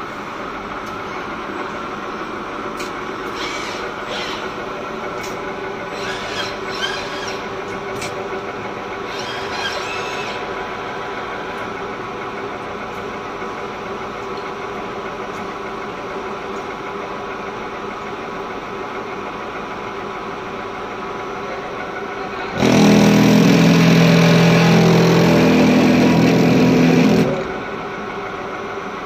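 HTMT TRM 30-ton spline rolling machine running a rolling cycle. A steady machine hum with a few clicks is joined, about 23 seconds in, by a loud, steady hum with a rushing edge as the dies roll a spline onto the shaft. It lasts about four and a half seconds and stops sharply.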